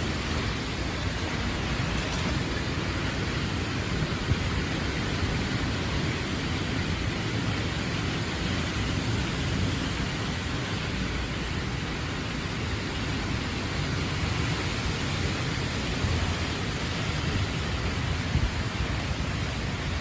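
Thunderstorm wind and rain rushing steadily, with gusts buffeting the microphone, from a storm close to a tornado.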